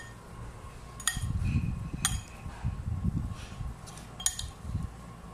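Two metal spoons tossing a chopped kidney-bean and potato chaat in a ceramic bowl: the soft shuffle of the food being mixed, with three sharp, ringing clinks of spoon against bowl.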